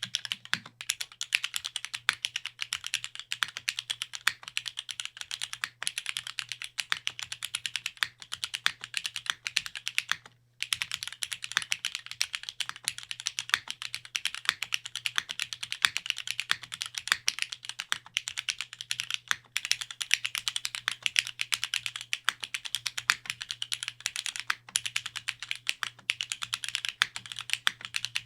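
Fast, continuous typing on a Geonworks Glare TKL top-mount custom mechanical keyboard, with a brief pause about ten seconds in. A faint steady low hum sits underneath.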